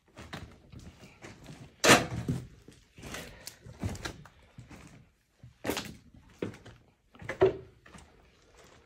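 Irregular knocks, thuds and scuffs of footsteps on a debris-strewn floor. The loudest is a sharp knock about two seconds in.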